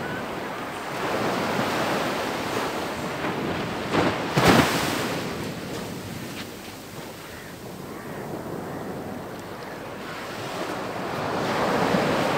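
Small surf waves breaking and washing up over wet sand, swelling and ebbing twice, with wind on the microphone. A brief loud gust of wind noise comes about four seconds in.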